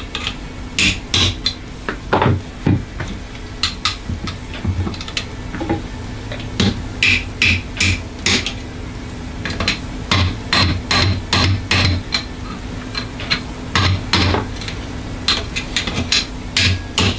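Repeated sharp hammer taps knocking out the front and rear trigger-group pins of a Ruger 10/22 rifle, coming in irregular quick clusters with short pauses between.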